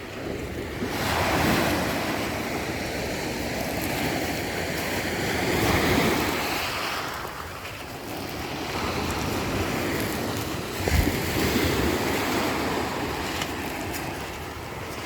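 Black Sea surf: waves breaking on the shore, swelling three times about every four to five seconds, with wind buffeting the microphone.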